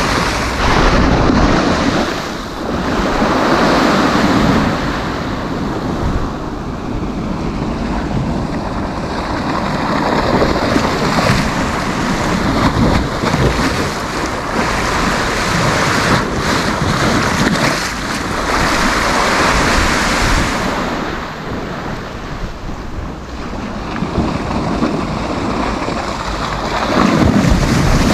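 Sea waves breaking on a sandy beach: continuous surf that surges louder every several seconds as waves come in, with wind buffeting the microphone.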